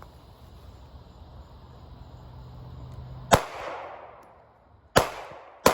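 Pistol shots fired at a slow pace: a first shot a little over three seconds in, a second about a second and a half later, and a third at the very end, each with a ringing echo that dies away.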